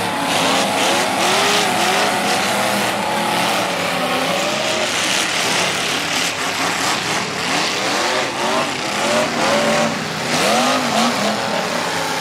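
Engines of several figure-8 stock cars on a dirt track, revving up and down over one another.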